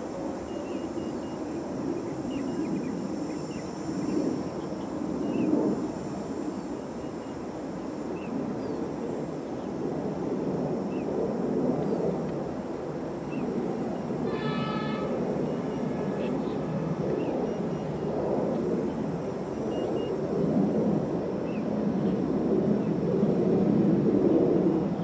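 Dongfeng DF4B diesel-electric locomotive approaching along the track from a distance: a low rumble that grows louder near the end. About halfway through there is a short high tone, with faint chirps scattered throughout.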